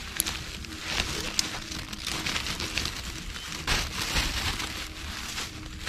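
Dry, fibrous oil palm empty fruit bunches crackling and rustling as they are pulled apart by hand, with irregular snaps and clicks.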